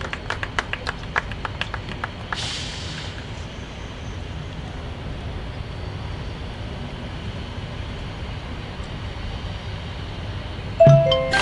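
Steady low outdoor rumble, like wind on the microphone, during a pause in a marching band show. A few scattered sharp clicks come in the first two seconds and a short high hiss about two seconds in. Near the end, the front ensemble's marimba and mallet percussion come in with loud pitched notes.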